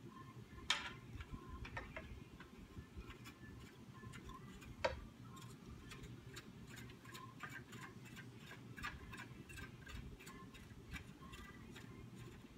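Light, irregular clicks and taps of metal bow parts being handled and fitted onto a recurve riser, with two sharper knocks about a second in and just before the five-second mark.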